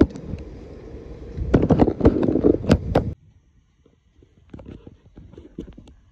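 Low rumble on the phone's microphone, with rustling and a few sharp clicks as a cord is pulled tight around canvas. It cuts off abruptly about three seconds in, leaving only faint handling clicks.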